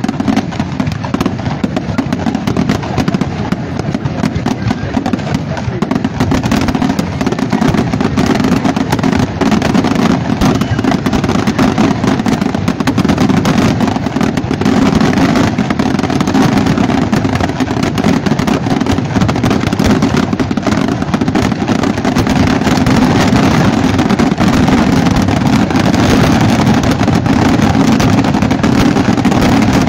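Aerial fireworks shells bursting in a rapid, continuous barrage of bangs and crackle. It grows somewhat louder through the second half.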